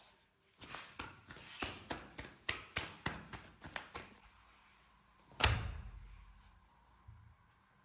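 Hands slapping flatbread dough from palm to palm to stretch it, a quick run of about a dozen slaps. About five seconds in, one loud thud as the dough goes down onto a flat nonstick pan (tawa).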